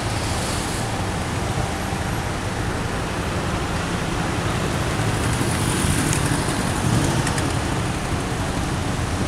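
Steady traffic noise from a queue of cars waiting at a checkpoint, with no distinct events standing out.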